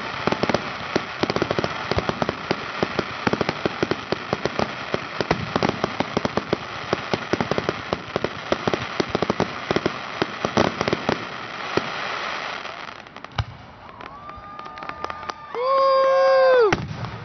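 Fireworks display: a dense, continuous run of crackling pops from glittering crackle shells for about thirteen seconds, then dying down. Near the end comes a loud held note, about a second long.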